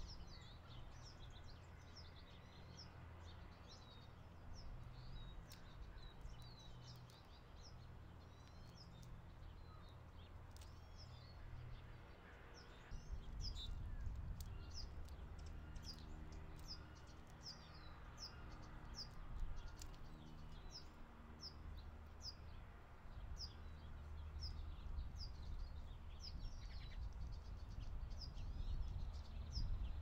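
Small birds chirping: many short, high calls repeating throughout. Beneath them a low rumble, and about halfway through a low, steady drone sets in.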